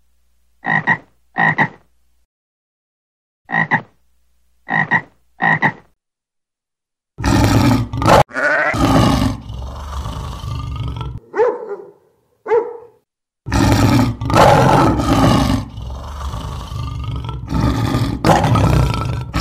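Animal calls: six short croaking calls in two groups of three, then loud, drawn-out rough calls from about seven seconds in, broken by two brief softer calls.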